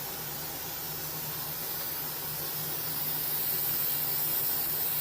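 Battery-powered paint sprayer running: a steady hiss of spray over a low, even motor hum, getting slightly louder about three seconds in.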